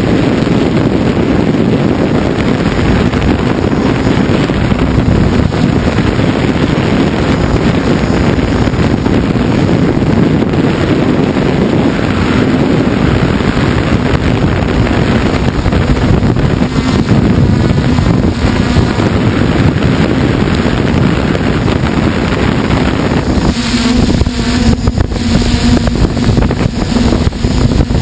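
Motors and propellers of the camera-carrying radio-controlled aircraft running steadily, heard from on board, with wind rushing over the microphone. Near the end the motor hum comes through clearer and more evenly pitched.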